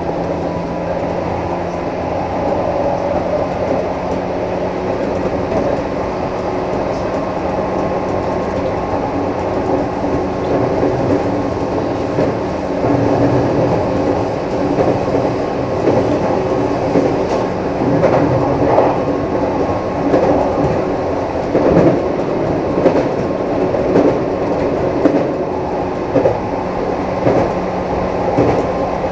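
JR East 211 series 3000 subseries electric multiple unit heard from inside its motor car, whose externally fan-cooled traction motors are very loud at speed. The train runs at speed with a steady whine over a loud rumble, and rail-joint clicks grow more frequent from around the middle onward.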